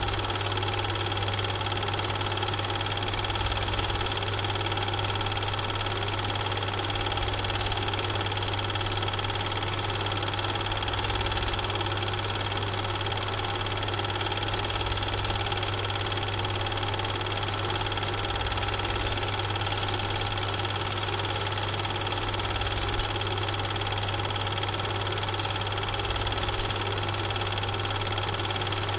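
Steady mechanical hum with a low throb and several fixed tones, the running noise of the film transfer rig rather than the trains on screen, which were shot on silent Super 8 film. A short click about halfway through and a couple more near the end.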